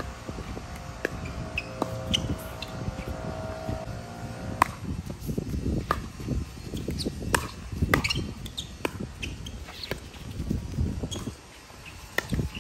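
Pickleball rally: sharp pops of paddles striking the hollow plastic ball, about once a second, from about a third of the way in. Under them is a steady low rumble, and a faint steady hum stops abruptly just before the hits begin.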